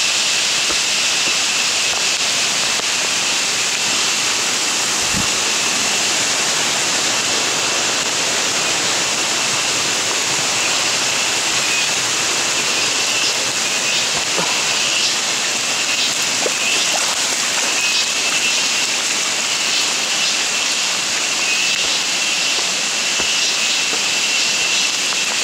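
Steady rush of monsoon rain and a running stream, with a constant high-pitched tone running through it.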